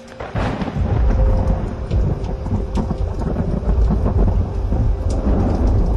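Heavy rain with a deep, continuous rumble of thunder, with scattered sharp drop ticks over the top. It cuts in abruptly and stays loud.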